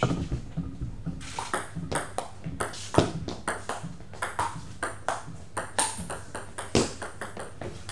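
Table tennis rally: the ball clicking off the bats and the table in quick alternation, a couple of the hits louder than the rest.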